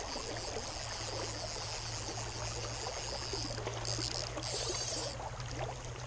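Fast creek water rushing steadily, with a fly reel's drag buzzing high as a hooked trout runs and pulls line off: one long run of about three and a half seconds, then two short bursts.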